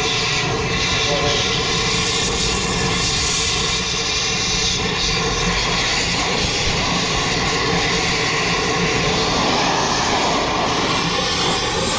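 A motor running steadily and loudly, with a constant multi-tone hum and no change in level.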